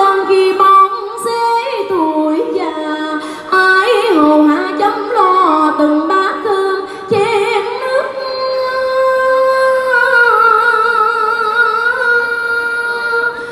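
A woman singing solo in Vietnamese into a microphone, her voice gliding between notes in short phrases, then holding one long note with a widening vibrato over the last few seconds.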